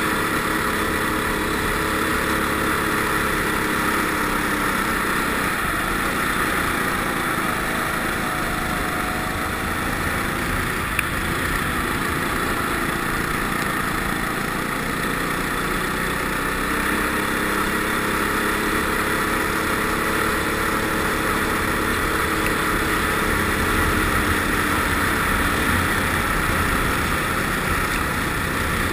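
Go-kart engine running hard on an ice track, heard onboard, its pitch slowly rising and falling as the throttle changes through the turns.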